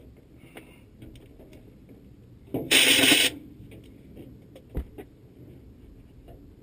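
A single loud, hissing burst from a shop tool lasting under a second, a little before the middle, amid light clicks and knocks of small metal parts being handled, with one sharper knock later.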